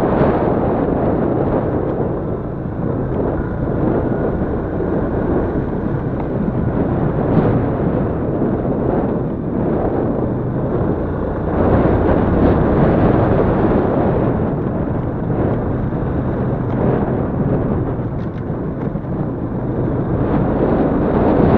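Yamaha Crypton-X's single-cylinder four-stroke engine running under way, largely buried under heavy wind rumble on the microphone. The noise swells and eases as the bike moves, dipping a couple of seconds in and again near the end.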